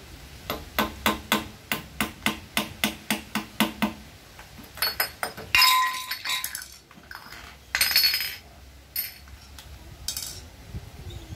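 A hammer tapping on metal engine parts, about a dozen quick, even, ringing strikes at roughly three or four a second. Then come metal parts clinking and clattering as they are handled, with two louder rattles midway.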